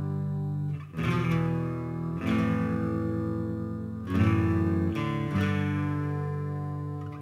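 Background music: guitar chords struck and left to ring, with a new chord every one to two seconds.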